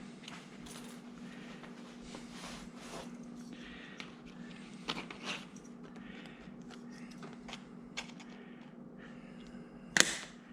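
Scissors cutting across a vinyl vertical-blind slat: scattered soft snips and rustling of the stiff plastic, with one sharp, louder click near the end.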